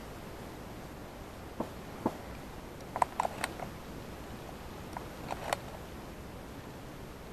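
Scattered short, sharp clicks and knocks, about ten of them, bunched around the middle and again about two-thirds of the way through, over a faint steady hiss.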